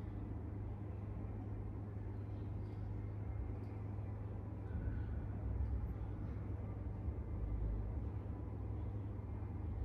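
A steady low hum with faint, even background noise.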